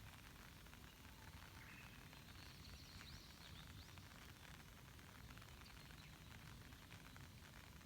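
Light rain falling on a lake, a faint steady patter of many small drops. A few faint, short, high bird chirps come about two to three seconds in.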